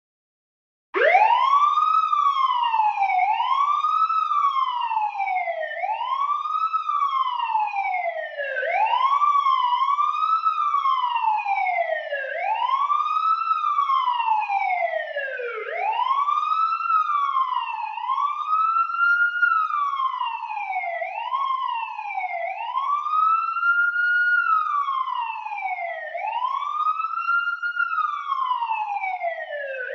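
Wailing siren, its pitch sweeping quickly up and then sliding down again about every two seconds, over and over, with cycles sometimes overlapping. It starts about a second in.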